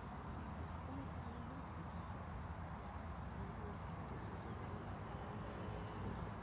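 Steady low outdoor background noise, with a small bird giving short high chirps about once a second.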